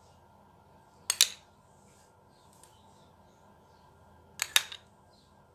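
A spoon tapping against a dish in two quick bursts of sharp clicks, about three seconds apart, as whipped curd is spooned onto papdi chaat.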